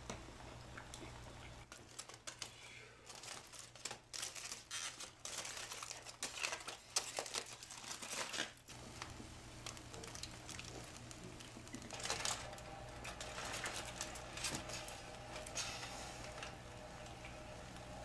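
Aluminium foil crinkling and crackling in irregular runs of small clicks, with a quieter patch around the middle.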